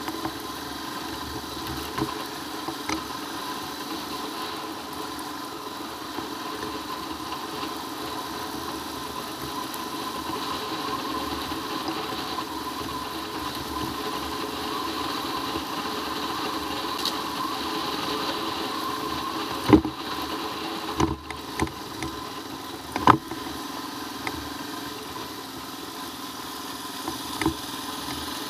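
Royal Enfield Himalayan's single-cylinder engine running steadily while the motorcycle is ridden over a dirt road, getting a little louder partway through. A few sharp knocks come about twenty seconds in.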